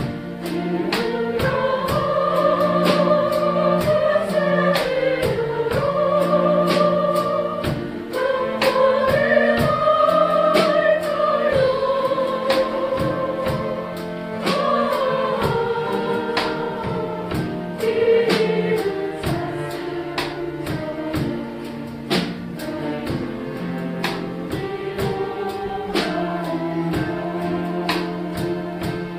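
An ensemble of chromaharps (autoharp-style zithers) strumming chords in a steady rhythm, with a group of voices singing the melody over them.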